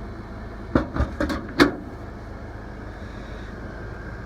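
About five sharp knocks and clicks in quick succession, about a second in, from something hard being handled, over the steady low hum of a Yamaha EF2000iS inverter generator running.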